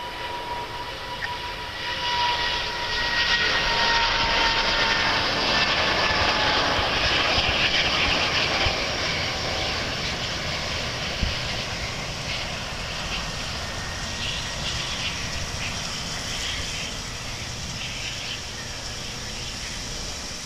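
An Airbus A350's Rolls-Royce Trent XWB turbofans at low takeoff thrust as the airliner climbs past. The jet roar carries a high whine that glides down in pitch over the first few seconds, is loudest from about three to nine seconds in, then slowly fades as the aircraft flies away.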